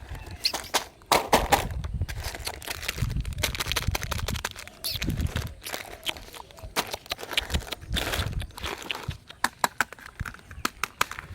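Candy egg wrappers crinkling, with many irregular clicks and crackles and low handling bumps as Kinder eggs and their plastic capsules are unwrapped and opened.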